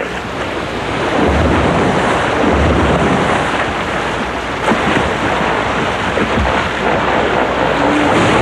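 Hippopotamuses fighting in water: continuous heavy splashing and churning, with a few deep thuds.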